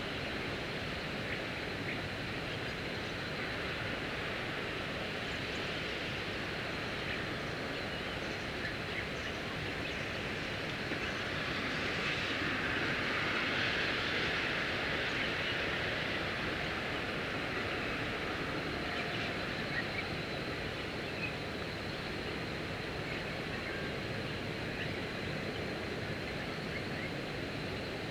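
Steady outdoor background noise that swells for several seconds near the middle, with faint short chirps scattered through it.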